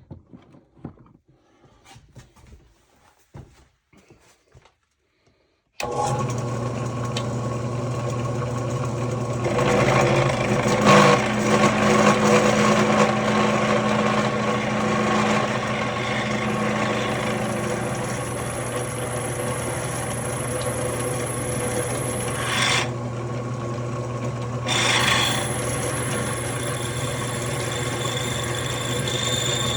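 Quiet handling clicks, then a floor-standing drill press is switched on about six seconds in and its motor runs with a steady hum. The bit rasps into a solid aluminium hand wheel as the half-inch centre hole is drilled. The cutting noise is heaviest soon after the start and eases off briefly about two-thirds of the way through.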